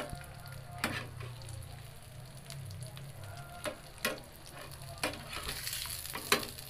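Burger patties sizzling in butter in a ridged grill pan, with a steady frying hiss that grows brighter near the end as a patty is lifted and turned. Kitchen tongs click against the pan about five times.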